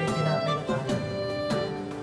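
Instrumental background music, a melody of held notes that change about every half second.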